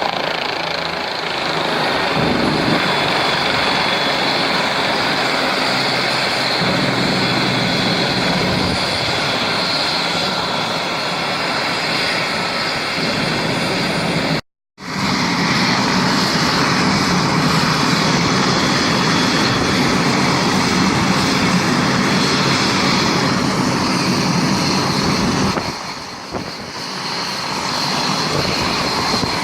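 A CareFlight medical helicopter running steadily: loud turbine whine and rotor noise. The sound cuts out for an instant about halfway through and eases briefly near the end.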